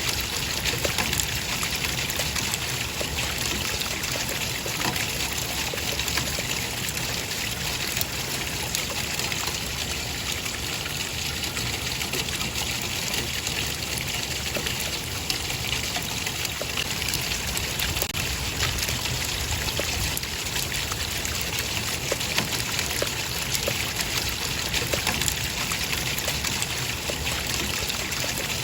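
Running water trickling and splashing steadily, a continuous even rush with small scattered drips and splashes.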